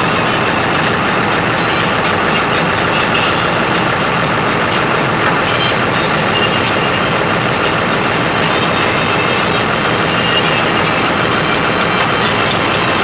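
An engine running steadily at idle: a loud, even drone with no changes.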